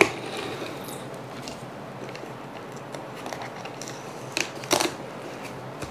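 Stretch-Tite plastic cling wrap being pulled from its box and handled over a baking sheet, with a sharp click at the start and two short crackling rustles of the film about four and a half seconds in.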